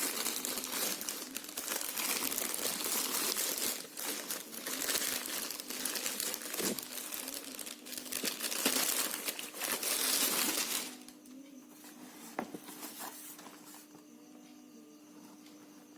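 Packaging being handled and crinkled while a shoebox is unpacked, a dense rustling that stops about eleven seconds in, followed by a few light clicks.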